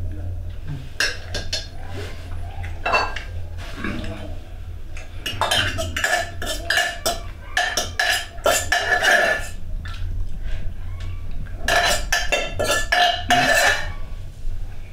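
A spoon scraping and clinking against an aluminium cooking pot and a metal bowl as rice is scraped out of the pot. The sound comes in several runs of quick scrapes with a ringing metal tone.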